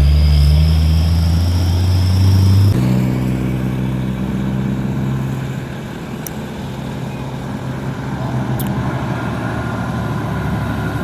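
Heavy diesel truck engine pulling uphill with a high whine. About three seconds in, the engine note jumps higher and the whine stops. The engine then fades gradually to a steady background of truck traffic.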